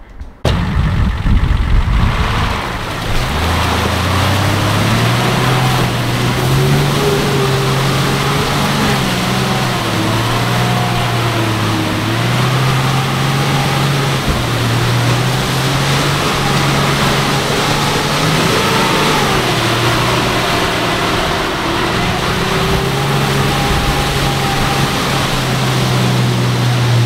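An off-road 4x4's engine running at moderate, shifting revs while driving, its note rising and falling in small steps. It cuts in suddenly just after the start.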